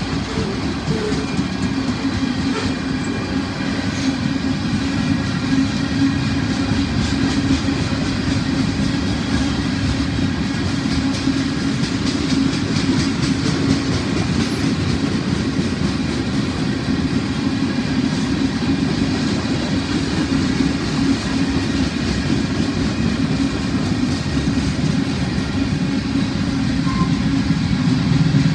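Freight train cars rolling past at a steady speed: a continuous rumble of steel wheels on the rails with the clickety-clack of wheels over rail joints, evenly loud throughout.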